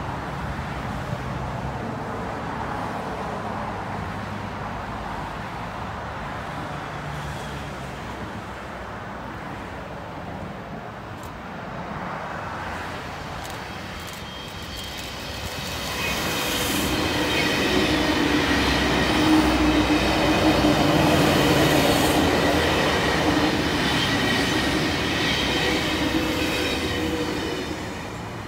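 A Sydney C set chopper-controlled double-deck electric train approaches and passes at speed. It grows louder from about halfway, is loudest as it goes by with a steady whine over the wheel and track noise, then fades near the end.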